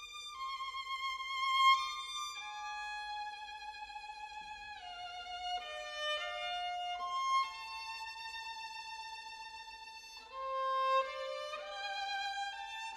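Violins playing a slow classical passage of held high notes with vibrato, the line moving step by step and sometimes sounding in two or three parts at once.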